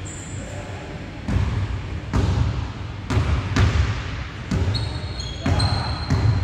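Basketball bouncing on a wooden gym floor: about seven irregular thuds, roughly a second apart, with a few short high squeaks in the second half.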